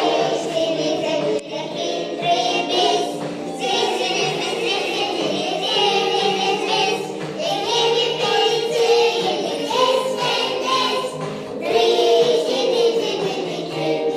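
A group of young children singing a song together in unison, phrase by phrase, with musical accompaniment underneath.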